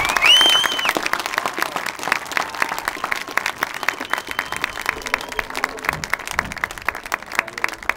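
Crowd applauding, with a shrill whistle from the audience within the first second; the clapping gradually thins out and fades.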